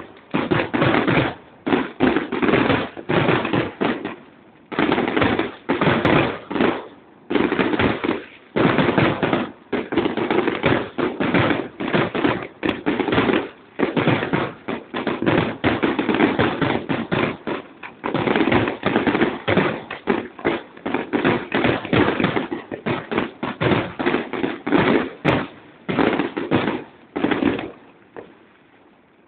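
Aerial fireworks display: shells bursting in rapid, dense volleys of bangs and crackling, with a few short pauses and a quieter lull near the end.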